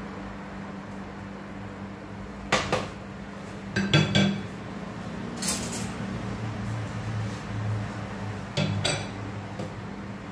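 Metal kitchenware clattering: sharp clinks and knocks of pots, lids and utensils, once about two and a half seconds in, several around four seconds, a short scrape, and two more near the end, over a steady low hum.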